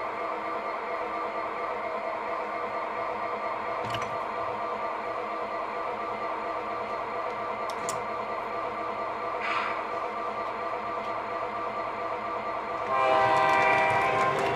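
Sound-equipped O scale model diesel locomotive running with its steady diesel engine sound, with a few light clicks. About thirteen seconds in its horn blows loudly and holds.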